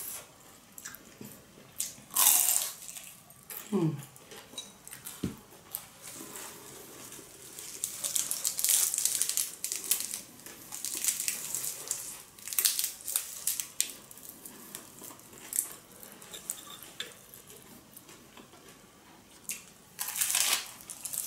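Close-up eating sounds: lettuce and herb leaves crinkling as they are wrapped around a fried pork spring roll, then crisp bites and chewing, in bursts a few seconds apart.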